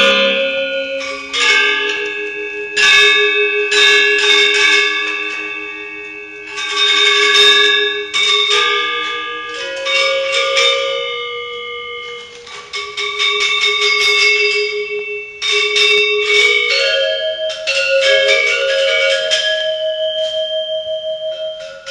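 Balinese gender wayang ensemble of bronze-keyed metallophones struck with mallets, playing a continuous melody of many overlapping bell-like notes that ring on after each stroke, some held notes pulsing with a shimmer; the traditional accompaniment to a wayang kulit shadow-puppet play.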